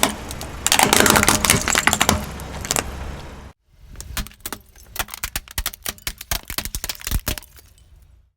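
A car tyre rolling over and crushing brittle objects: a dense burst of crackling and snapping, then after a sudden break a run of separate sharp cracks and pops, with a low engine rumble underneath.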